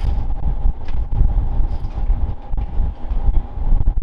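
Wind buffeting the microphone on an open ship's deck, an uneven low rumble, over a constant high machinery whine.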